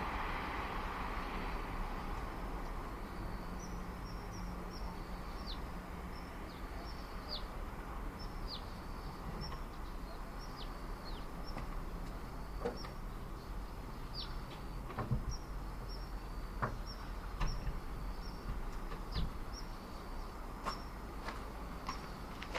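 A vehicle passing fades out in the first couple of seconds. Then a small bird calls again and again in short, high chirps that slide downward, over steady suburban background hum. A few sharp clicks sound in the second half.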